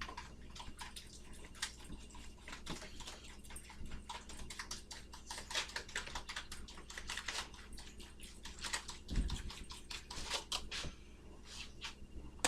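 Food preparation at a kitchen counter: a run of irregular light clicks and taps from hands handling dough, toppings and utensils, with one low thump about nine seconds in, over a steady low hum.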